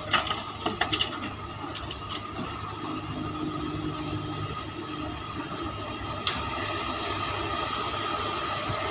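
Komatsu PC300 excavator's diesel engine running steadily, with several sharp knocks in the first second and another single knock about six seconds in.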